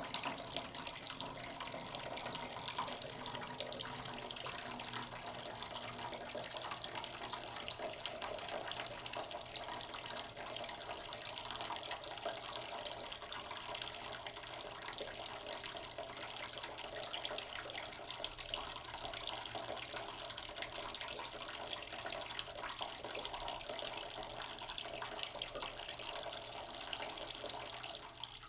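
Water running from a kitchen tap into a cooking pot in a sink, a slow, steady stream filling the pot.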